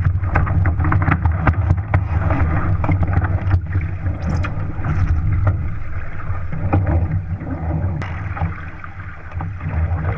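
Wind buffeting the microphone and water rushing along the hull of a Shaw 650 sport boat under sail, a steady low rumble with a wash of water noise. Scattered clicks and knocks run through it, easing a little near the end.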